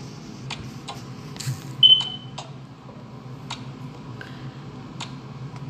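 A single short, high electronic beep about two seconds in, over a steady low hum and scattered light clicks.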